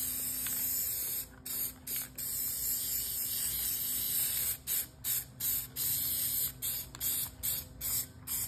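Aerosol spray paint can hissing as paint is sprayed. It gives long, steady sprays for the first few seconds with a couple of brief breaks, then short bursts about two a second.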